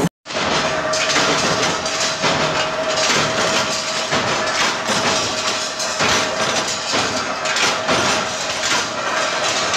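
Metalworking machinery running with a dense, continuous clatter of metal striking metal and a steady whine underneath.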